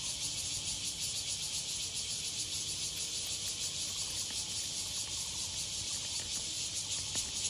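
Cicadas buzzing: a steady, high-pitched insect drone with a fast pulsing throb.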